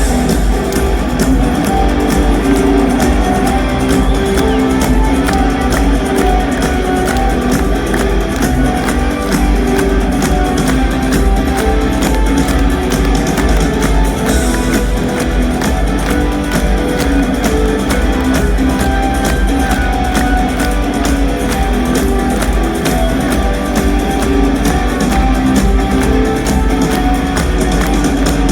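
Rock band playing live: electric guitars over a drum kit, loud and steady, with no break.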